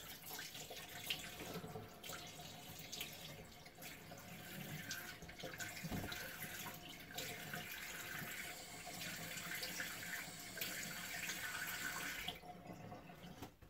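Cold water running from a bathroom sink tap, with splashes as water is cupped onto the face to rinse after a shave. The tap shuts off about a second before the end.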